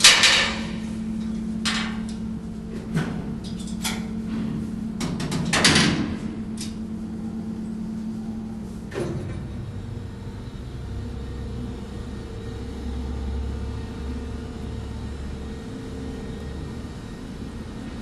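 Steady drone of the car ferry Prins Johan Friso's machinery, with several sharp clanks and bangs in the first half, the loudest right at the start and another about six seconds in. From about ten seconds in, a deeper low rumble takes over.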